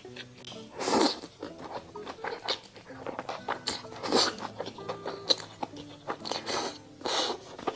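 Close-miked eating sounds: irregular chewing clicks and wet mouth noises, with a few louder crunchy bites spread through.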